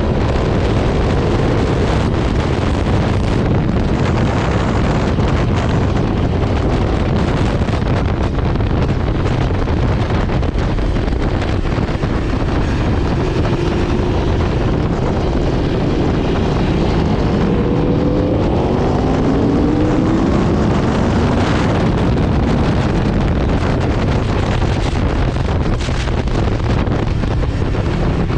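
Aprilia RSV4 RF V4 sportbike at track speed heard from the rider's onboard camera, steady heavy wind noise on the microphone over the engine. About two-thirds of the way through, the engine pitch climbs several times as the bike accelerates.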